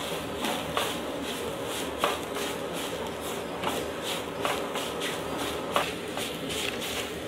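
A wooden spatula stirring grated radish in a clay pot, scraping against the pot in repeated strokes about twice a second as the radish is lightly sautéed.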